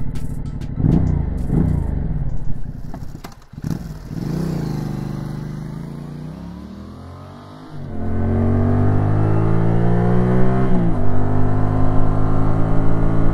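Yamaha Tracer 700 GT's 700cc two-cylinder engine through its Akrapovic muffler: two quick throttle blips about a second in, a longer rev that dies away slowly, then from about eight seconds a louder run with rising engine pitch and a sudden drop near the end, as under acceleration with an upshift.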